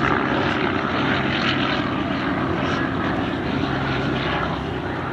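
Propeller engine of a First World War Fokker replica aeroplane running steadily in flight, easing off slightly near the end.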